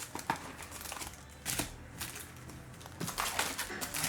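Trading cards and pack wrappers being handled: a few sharp clicks and short rustles, scattered and uneven.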